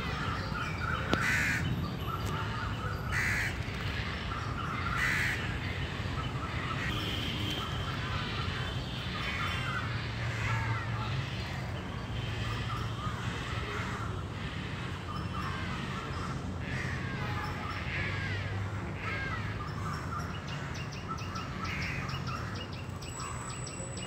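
Crows cawing again and again, harsh calls roughly every couple of seconds at first, over the chirping of smaller birds and a steady low rumble.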